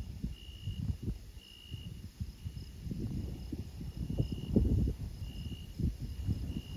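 Crickets chirping at night in a steady train of high trills, each about half a second long and coming about once a second, over a low, uneven rumble.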